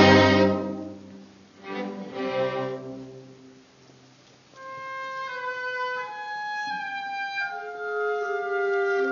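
Orchestra playing two loud full chords with the strings, each dying away. After a near-silent second, soft held notes from the winds come in, moving slowly from pitch to pitch and stacking into chords while the strings rest.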